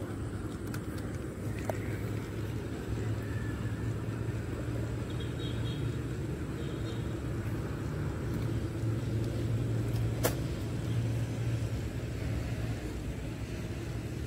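A steady low motor hum, with a single sharp click about ten seconds in.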